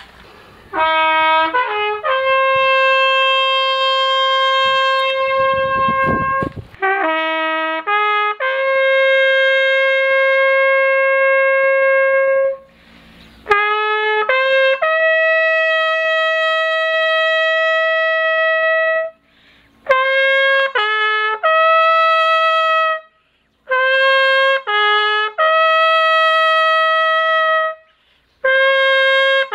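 Solo trumpet playing a slow call. Each phrase is two short rising notes leading into a long held note, with brief pauses between the phrases.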